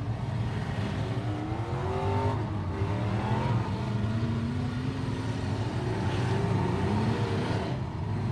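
Demolition derby cars' engines revving over a steady low running drone, with several overlapping revs climbing in pitch.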